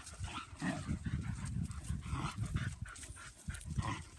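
Several German Pinschers playing rough, panting and scuffling as they chase and wrestle, in short irregular bursts.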